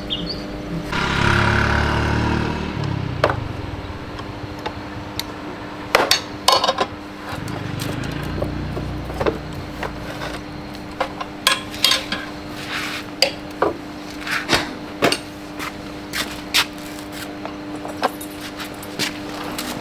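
Metal tools clinking and knocking against motorcycle parts during a repair, many short taps at an uneven pace over a steady hum. A vehicle passes about a second in, and another, fainter, around eight seconds.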